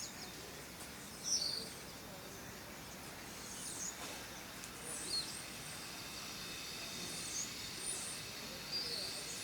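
Quiet outdoor ambience: a faint steady hiss with a handful of short, high bird chirps scattered through it, a few seconds apart.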